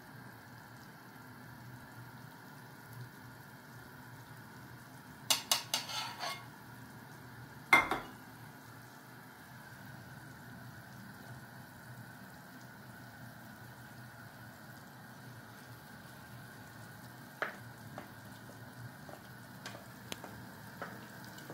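Pot of vegetable soup bubbling steadily on high heat, the stage at which the batter is poured in. A few metal clinks of a utensil against the pot come about five to six seconds in, with one sharp clink near eight seconds.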